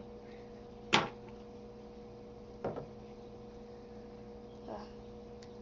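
A few sharp clicks and taps from hands working rubber bands over a plastic band loom, with the loudest about a second in and another near three seconds. A steady low hum runs underneath.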